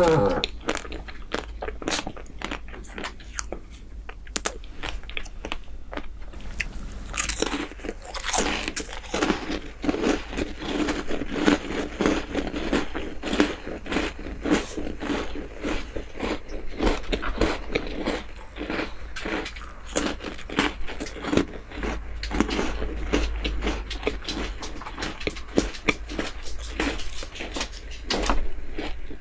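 Close-miked chewing of a mouthful of soft chocolate dessert, with rapid moist clicking mouth sounds that thicken about a quarter of the way in.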